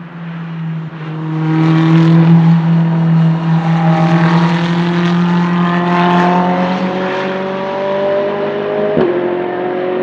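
Ferrari 488 GT3's twin-turbo V8 race engine growing loud over the first two seconds as the car comes close, then holding high with its pitch rising slowly under acceleration, with a brief break about nine seconds in.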